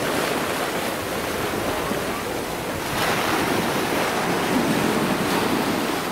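Steady rushing noise that swells slightly about three seconds in.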